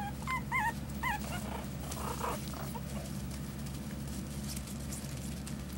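Young Pomeranian puppies whimpering: a few short, wavering high whines in the first second and a half, then softer ones, over a steady low hum.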